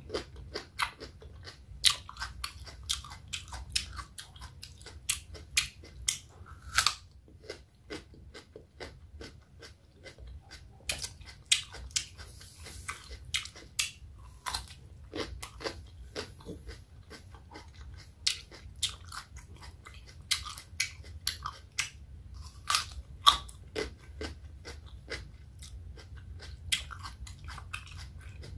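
Raw cucumber being bitten and chewed, with many sharp, irregular crunches and wet mouth sounds.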